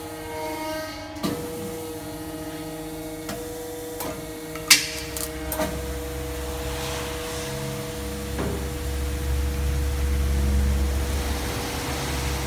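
Hydraulic cold pressure welding machine running with a steady electric hum, broken by sharp clicks and one loud clack about four and a half seconds in. A low rumble builds from about five seconds in.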